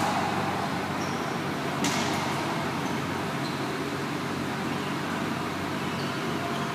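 Steady hum and hiss of a reverberant indoor racquetball court, broken about two seconds in by one sharp, echoing smack of the racquetball. A few short high squeaks are scattered through it.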